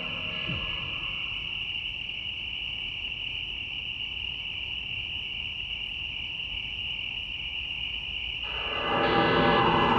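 Crickets chirring steadily in a continuous high band over a low rumble. About eight and a half seconds in, a deep drone swells in and grows louder.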